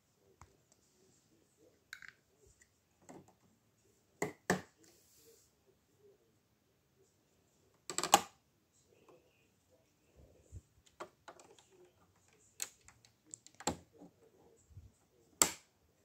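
Sharp plastic clicks and knocks from a LEGO Galaxy Explorer model being handled, scattered with quiet between: two about four seconds in, the loudest cluster about eight seconds in, and several more in the last few seconds.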